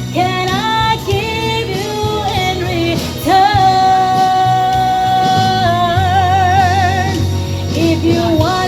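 Solo singing over a backing track. Short sung phrases lead into one long high note, held steady for a couple of seconds, that turns into a wide vibrato before it ends.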